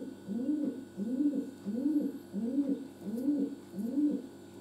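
A low voice repeats a short cooing call about one and a half times a second, each call rising and then falling in pitch.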